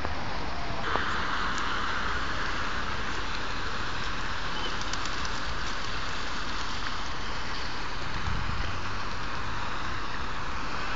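Steady outdoor background hiss with no clear single event; a brighter, hissier layer sets in just under a second in, and there is a brief low bump about eight seconds in.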